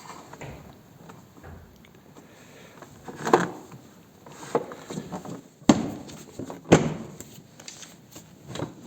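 Harley-Davidson touring saddlebag lid being worked with its new aluminium latch lever: a handful of sharp clicks and knocks as the latch is operated and the lid shuts, the two sharpest about a second apart near the middle.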